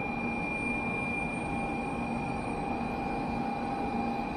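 Steady background noise of a Shinkansen station platform, with a faint constant high tone running through it. The level holds even, with no clear event.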